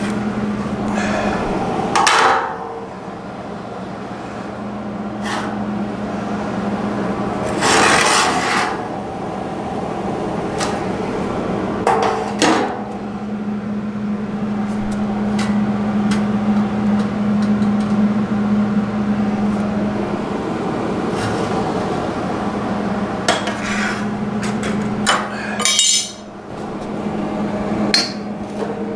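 Metalworking on steel tubing: scattered knocks and clanks of tools on metal, with a few noisy bursts about a second long, over a steady low hum.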